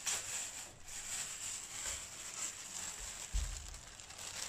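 Plastic packaging and cardboard rustling as a bagged cable is lifted out of a speaker box, with a dull thump a little past the middle.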